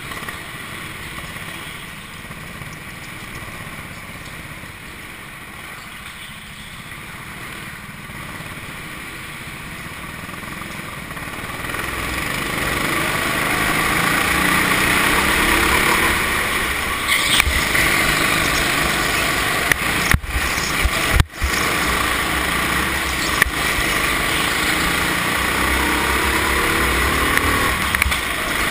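Racing go-kart engine heard from onboard, running hard through a lap with its pitch rising and falling as the throttle opens and closes for the corners. It grows louder about halfway through, with two brief dropouts in sound a little later.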